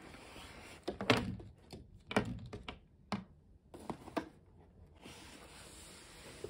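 A cardboard box and its packaging being handled and opened: a soft rustle, then a series of thunks and clicks, loudest about a second in and again about two seconds in, thinning out after about four seconds.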